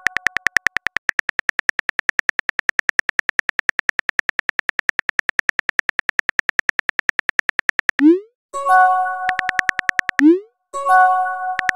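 Phone keyboard typing clicks, a rapid, even patter of about ten taps a second. About eight seconds in, a rising swoosh and a short chime mark a message being sent. After a little more typing, a second swoosh and chime follow a couple of seconds later, and the typing clicks resume.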